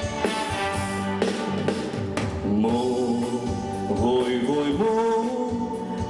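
Live band playing the opening of a Konkani song, with drum-kit hits under the instruments; a man's singing voice comes in about two and a half seconds in, holding long, sliding notes over the band.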